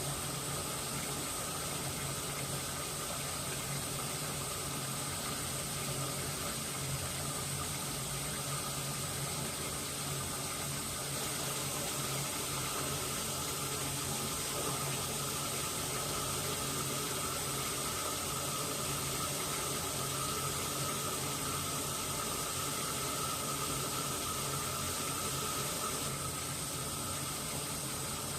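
Washing machine running: a steady hiss of water with a low motor hum and a faint whine that strengthens slightly about halfway through.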